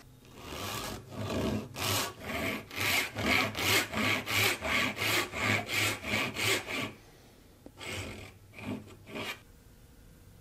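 Hand backsaw cutting a shallow kerf into the end of a small piece of wood, in quick, even strokes a little over two a second. It stops after about seven seconds, and a few short strokes follow a second later.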